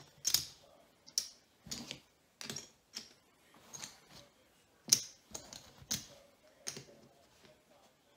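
Poker chips clicking against each other as they are stacked and set down on a craps layout: about a dozen sharp clacks at irregular intervals, the loudest about five seconds in.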